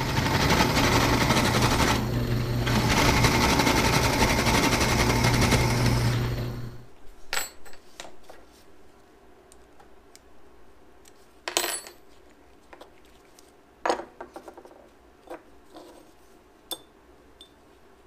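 A loud, steady machine noise with a low hum runs for the first seven seconds and then stops. After it come a few sharp metallic clicks and clinks as aluminium rearset foot-peg parts and a machined steel bushing are handled and set down on a rubber-topped bench.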